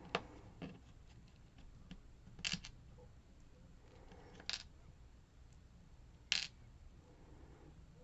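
A few short, sharp metal clicks and taps, about five spread out, as a lock and small tools are handled.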